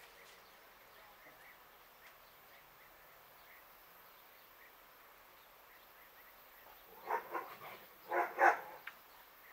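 A dog barking in two quick bouts of a few barks each, starting about seven seconds in, over quiet rural background with faint chirps.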